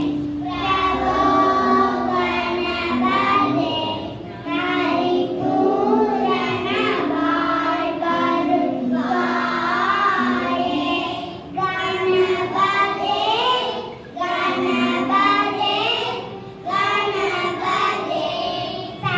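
Young kindergarten children singing a song together, in sung phrases separated by brief pauses.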